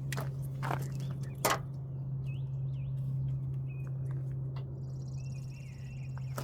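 Scattered knocks and clicks of hand tools working on a car battery mount in an engine bay, the sharpest about a second and a half in, over a steady low hum, with a bird chirping a few seconds in.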